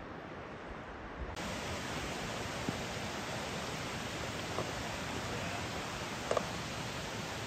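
Steady outdoor hiss that suddenly turns brighter and fuller about a second and a half in, with a few faint clicks.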